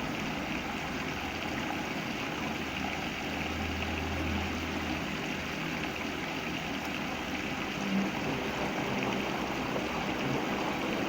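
Samsung front-loading washing machine filling with water: a steady rush of water running into the drum during the fill stage, with a brief low hum about a third of the way in.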